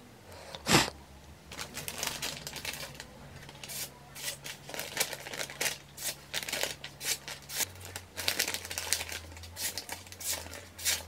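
A hand-made high-carbon steel cleaver slicing through a hand-held sheet of paper: a quick, irregular run of short crisp cuts and paper rustles, the usual test of a freshly sharpened edge. A single sharp click comes just under a second in.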